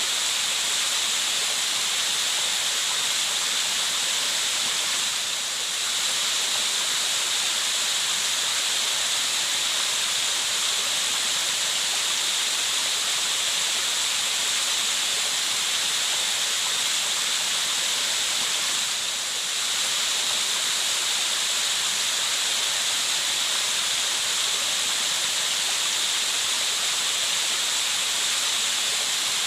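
Steady, hissy white noise of rushing water, even throughout, dipping slightly in level twice.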